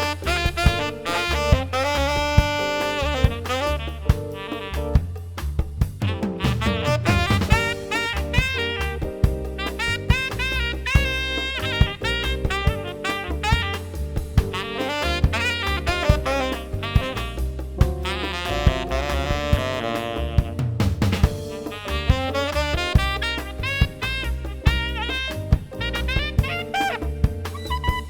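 Smooth jazz saxophone solo over keyboard chords, bass and a steady drum beat, the sax line bending and gliding between notes.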